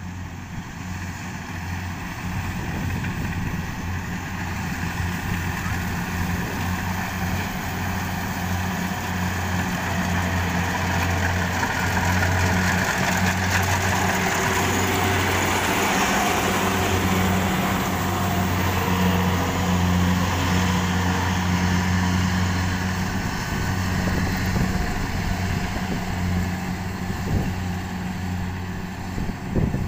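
Kubota DC70 rice combine harvester running at working speed while cutting and threshing lodged rice: a steady diesel engine hum under the rattle of the cutter and threshing drum. It grows louder as the machine passes close, about halfway through, and eases off as it moves away.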